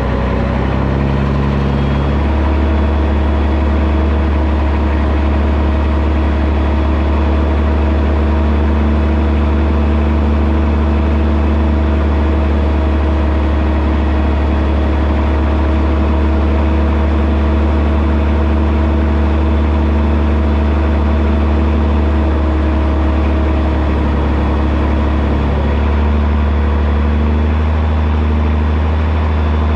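Caterpillar C15 diesel of a Peterbilt 379 semi running steadily under way, heard from outside the cab beside the exhaust stack. The engine note shifts about two seconds in and again a few seconds before the end.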